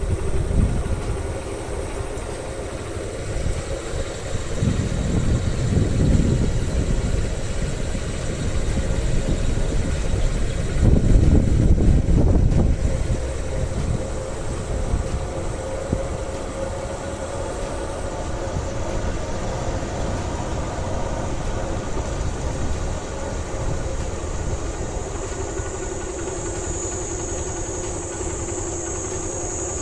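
Motorcycle engine running steadily on the move, with louder low rumbling stretches about 5 and 11 seconds in.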